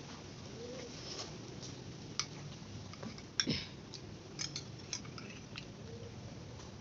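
A metal spoon clicking and tapping against a glass mug of coffee as coffee-soaked cake is scooped out, with soft chewing between. There are scattered light clicks, the sharpest about three and a half seconds in.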